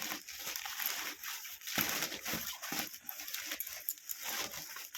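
Plastic packaging of a sleeping bag rustling and crinkling as it is handled and pulled open, in irregular crackly bursts, with a louder rustle about two seconds in.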